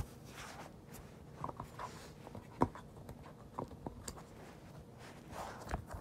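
Hands handling a case and its contents at close range: scattered light taps and clicks with some rustling, one louder knock about two and a half seconds in.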